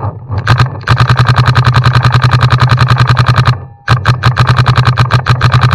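Paintball marker firing in long rapid strings, more than ten shots a second, with a brief break about three and a half seconds in before the firing resumes.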